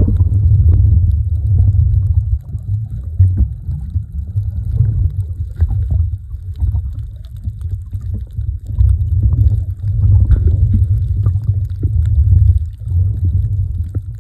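Muffled low rumble of water moving against an iPhone's microphone held underwater while snorkeling, swelling and fading in level, with scattered faint clicks.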